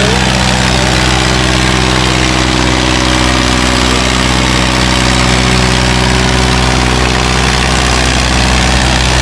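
Ford 4000 tractor engine running at a steady speed: a loud, even drone that holds one pitch throughout.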